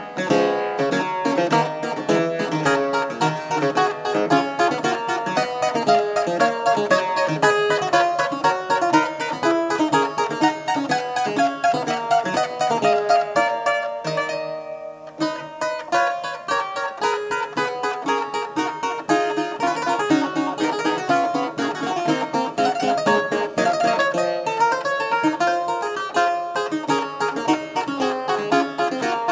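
Clavichord playing a seventeenth-century toccata: quick runs of notes and chords in close succession, with a brief thinning about halfway through before the notes resume.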